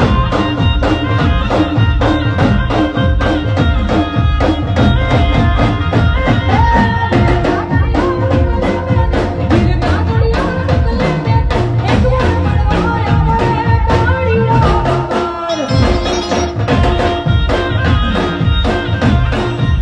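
Loud live Gujarati folk music over a sound system: a fast, even drum beat under a sustained melody line. The bass drops out for a moment about three-quarters of the way through.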